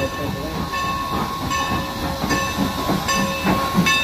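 Steam locomotive Norfolk and Western No. 475, a 4-8-0, ringing its bell with an even stroke about every 0.8 s while it moves slowly into the station. Steam hiss and a low rumble from the engine run underneath.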